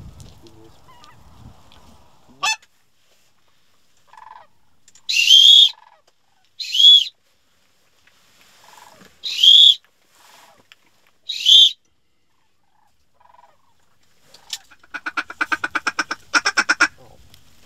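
Hand-blown waterfowl calls from the blind: four loud, high-pitched goose-style calls, each well under a second long, followed near the end by a fast run of short clucking notes as birds are called in. Faint calls from passing birds are heard between them.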